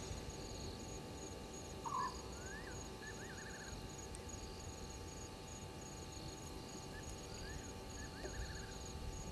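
Night insects, crickets, chirping in a steady run of short, high-pitched pulses. Twice a brief series of rising chirped calls from another animal joins in, about two seconds in and again about seven seconds in.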